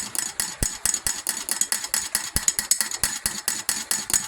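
Metal spoon stirring in a glass of whipped coffee, clinking against the sides about seven or eight times a second, with two soft thumps.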